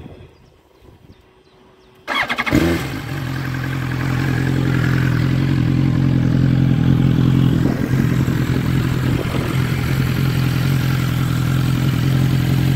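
A BMW S1000XR's inline-four engine, running through an Akrapovic exhaust with the exhaust servo removed, is started about two seconds in. It catches at once and settles into a steady idle.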